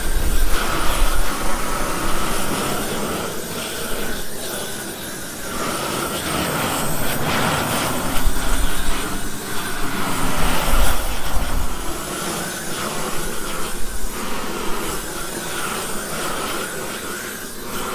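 GrillBlazer GrillGun propane torch running, its flame playing over a raised bed to scorch the top layer of soil. A steady noisy rush whose loudness rises and falls as the flame moves.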